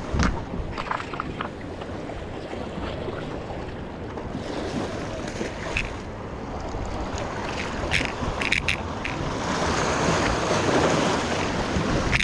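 Surf washing against jetty rocks, with wind buffeting the microphone; the wash swells louder near the end, and a few brief clicks come about eight seconds in.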